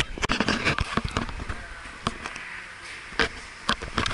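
Close handling knocks and clicks on the camera and a paper plate: a dense clatter in the first second, then a few single sharp knocks spaced about a second apart.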